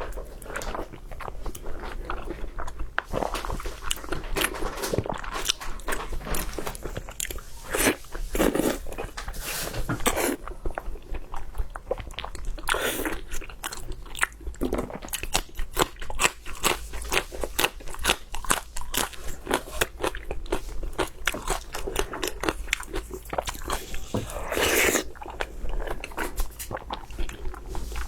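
Close-miked eating: biting and chewing food with many crisp crunching clicks.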